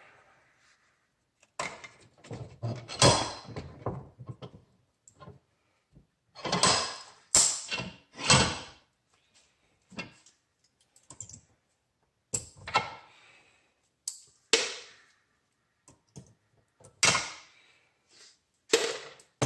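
Irregular knocks, clicks and scraping from hand tools working a plastic electrical plug apart to free its brass prongs, in separate strokes with short pauses between.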